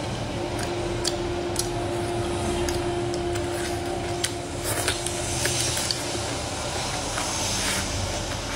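A person chewing food, with scattered small clicks like chopsticks on a bowl, over a steady hiss.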